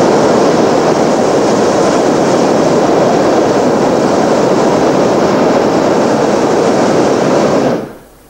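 Hot air balloon's propane burner firing in one long, loud, steady blast of about seven and a half seconds, cutting off suddenly near the end.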